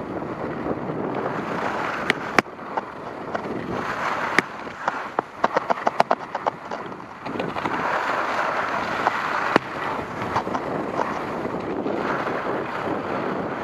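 Wind rushing over a skier's body-worn camera microphone during a downhill run, with the skis hissing over packed snow. A run of sharp clicks and scrapes comes a couple of seconds in and lasts until about seven seconds in.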